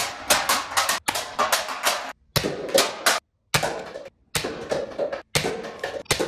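Toy foam-dart blaster shots, sharp clicks with darts knocking into aluminium cans and paper cups. They come in about six short bursts of clicks and knocks, each cut off by a sudden brief silence.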